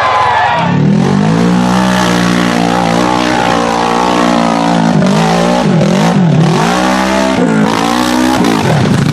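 An off-road vehicle's engine comes in under a second in and runs steadily at high revs, then its pitch drops and climbs back several times in the last few seconds.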